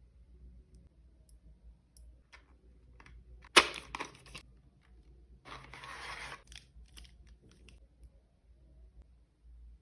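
Small beauty-product packaging being handled and opened: scattered light clicks, one sharp snap about three and a half seconds in, then about a second of plastic rustling.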